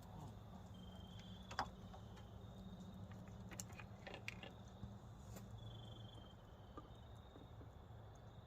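Near silence: a faint steady low hum, with a few light clicks and some faint short high-pitched chirps.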